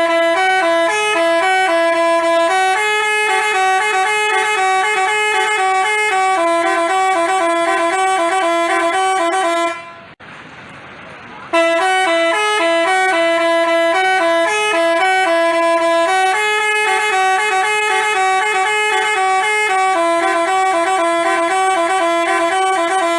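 Basuri telolet multi-tone bus horn playing a melody of quick, stepped notes. It plays in two long phrases with a short break about ten seconds in.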